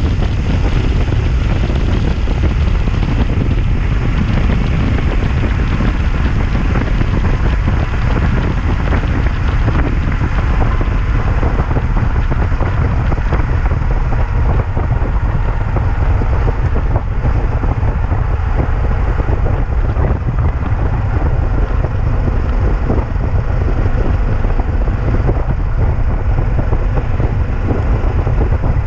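Yamaha XT660Z Ténéré's single-cylinder engine running on the move, with heavy wind buffeting on the microphone. The aluminium Roncar top case keeps rattling and knocking as the bike rides over the road, more of it in the second half.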